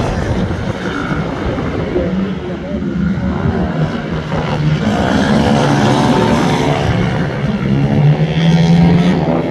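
Several mini motorcycles and small scooters racing, their small engines buzzing and revving, the pitch rising and falling as they accelerate and shift. The engine note grows louder in the second half.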